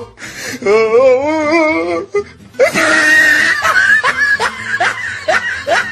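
Comic sound-effect clips: a wavering, warbling tone for about two seconds, then, after a brief pause, a burst of wheezy laughter over music.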